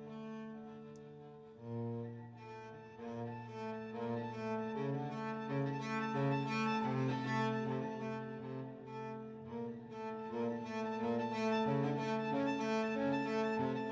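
Instrumental music led by low bowed strings, sustained notes changing every second or so, swelling louder about two seconds in.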